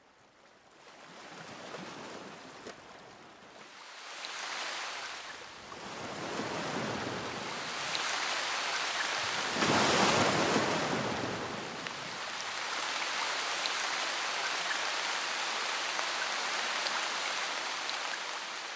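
Rain falling: an even hiss with scattered drop ticks. It fades in from silence at the start, swells in waves to its loudest about ten seconds in, then holds steady.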